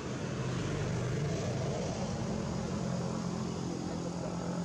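Steady low engine drone of a motor vehicle running, with a hiss over it.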